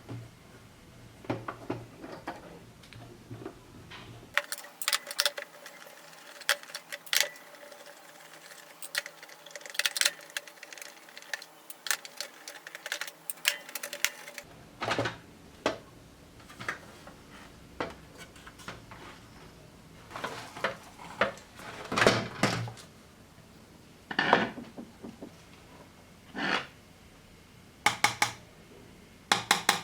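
Irregular clicks, taps and light clatter of small plastic and metal parts being handled while a Casio SA-75 mini keyboard is taken apart and cleaned.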